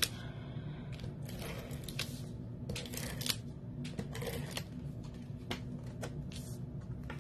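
Cardstock being handled: short, irregular rustles, slides and light taps as an embossed paper panel is lifted, lined up and pressed onto a card base on a tabletop.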